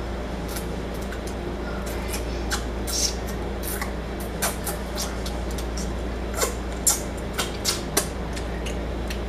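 Close-up mouth sounds of eating fried chicken and licking the fingers: irregular smacking clicks, a few louder ones in the second half, over a steady low hum.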